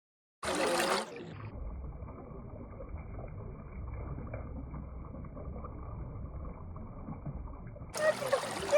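A short burst of noise, then a steady, muffled low rumble of water.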